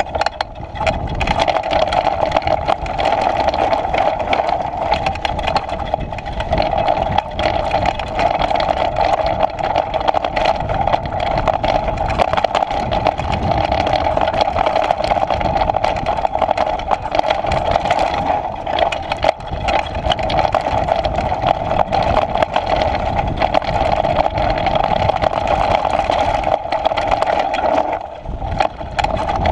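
Downhill mountain bike riding fast down a dry, rocky dirt trail: a steady, loud rolling drone with constant rattling and knocks from the bike over rough ground. It eases off briefly near the end.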